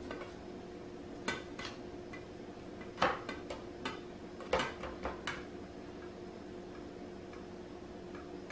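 Scattered light clicks and taps of a hand and a cod fillet knocking against a metal baking pan while the fish is dredged in flour, about nine of them, stopping a little over five seconds in. A steady faint hum runs underneath.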